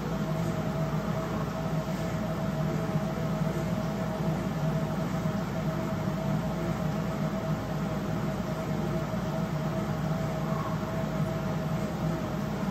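Indoor spin bike's flywheel whirring steadily as it is pedalled at a constant pace, a continuous hum with one steady tone.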